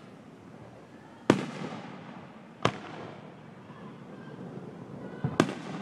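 Fireworks display: sharp bangs of shells going off. The loudest comes about a second in and rumbles on after it, another follows a second or so later, and a quick double bang comes near the end.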